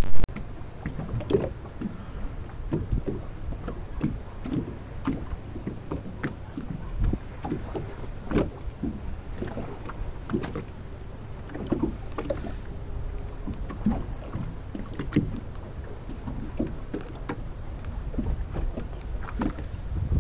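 Water lapping and slapping against a boat's hull at sea in irregular small splashes, over a steady low rumble.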